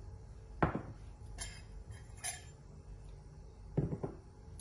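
Glass bowls knocking and clinking on a countertop as they are set down. A sharp tap comes about half a second in, then a couple of faint clicks, and a heavier knock near the end as a glass mixing bowl is put down.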